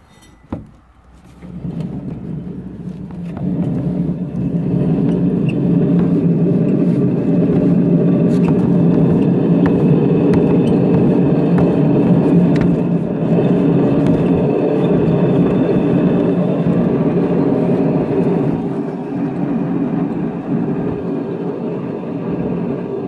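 Manually operated Wengers potter's wheel spinning, its drive running with a steady whir. The whir builds over the first few seconds, holds, and eases a little near the end. A single knock comes about half a second in.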